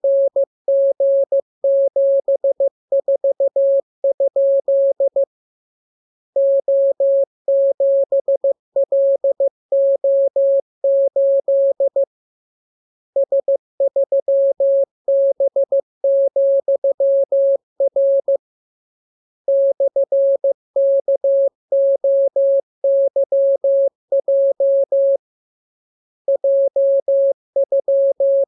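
Morse code training transmission: a single pure tone of about 600 Hz keyed on and off in dots and dashes. It comes in blocks of characters about six seconds long, separated by pauses of about a second.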